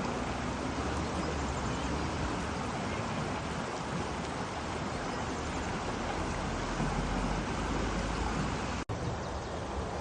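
Steady rush of a flowing stream or river, an even hiss with a low rumble underneath, cutting out for an instant about nine seconds in.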